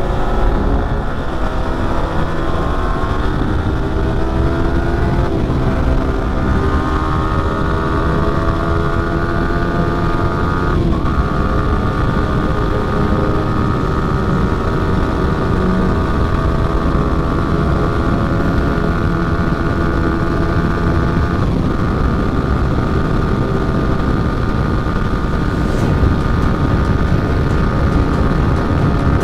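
Yamaha R15 V3's 155 cc single-cylinder engine under hard acceleration from third up to sixth gear. The engine note climbs and breaks briefly at each of three upshifts, then holds steadier near top speed. A heavy rush of wind noise runs underneath.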